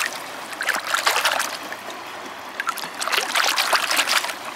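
A hand swishing a pebble through shallow river water to rinse it, splashing in two bouts, about a second in and again near the end, over the steady wash of the river.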